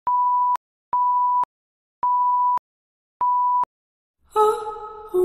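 An electronic beep: a single pure, steady tone at one pitch, sounding four times at uneven intervals, each about half a second long, with dead silence between. Music comes in about four seconds in.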